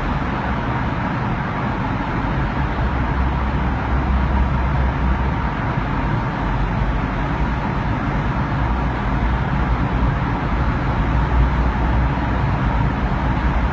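Steady road noise of a car driving through a road tunnel, heard from inside the cabin: a deep, even rumble with a constant rush of tyre and traffic noise over it.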